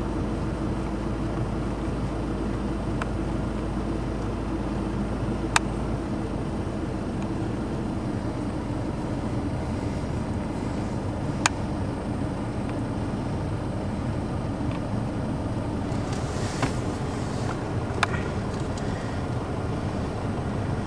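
A ute's engine running at low speed with road noise, heard from inside the cab as it crawls along a rough dirt track. A few sharp clicks or knocks stand out over the steady running.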